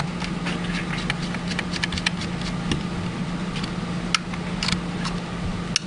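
Small sharp clicks and taps of parts and tools being handled while a syringe pump is reassembled, over a steady low hum.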